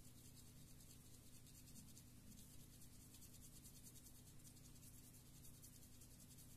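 Near silence: faint hum and hiss, with a soft rubbing as a small plastic Bluetooth headset part is scrubbed clean by hand.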